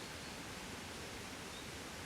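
Gentle breeze: a steady, soft hiss of wind rustling without gusts.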